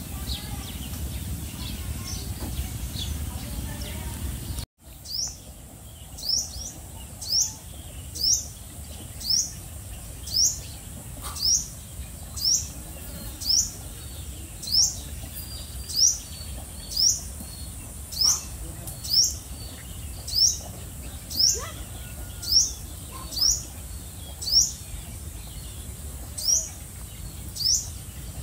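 A bird repeating one short, high chirp that rises in pitch, very regularly about once a second. For the first five seconds there is only a low rumbling background noise, which cuts off suddenly before the chirps begin.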